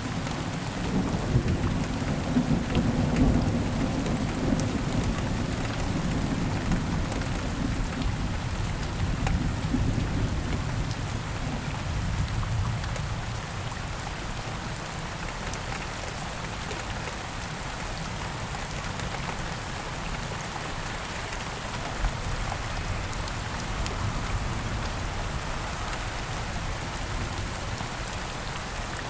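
Thunderstorm: steady rain pattering, with a long roll of thunder rumbling low through the first dozen seconds and fading away, leaving the rain alone.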